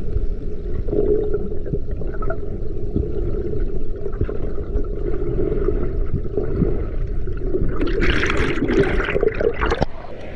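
Water gurgling and rushing, with most of the sound low and muffled. About eight seconds in comes a burst of splashing that lasts about two seconds.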